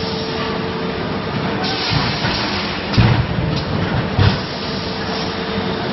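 PS foam forming and cutting machine running: a steady mechanical hum and hiss, with a short burst of hiss and a couple of heavy thumps as it cycles.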